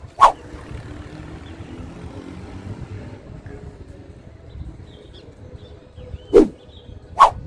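Road traffic from a busy avenue, a steady rumble of passing cars. It is broken three times by a sharp, short, loud sound: once just after the start and twice close together near the end.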